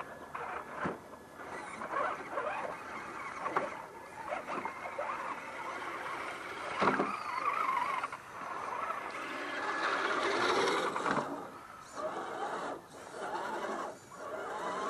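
Electric motors and gears of radio-controlled scale crawler trucks whining as they drive through a shallow rocky creek, the whine rising and falling with the throttle, with water splashing around the wheels and a few knocks of tyres on rock.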